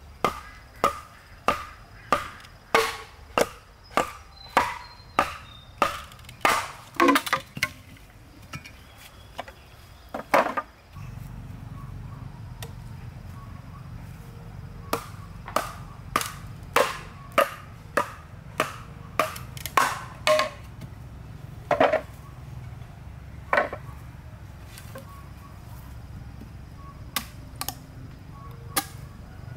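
Repeated sharp blows of a machete on green bamboo, somewhat faster than one a second, each with a short ring. They come in two runs with a pause of a few seconds between them.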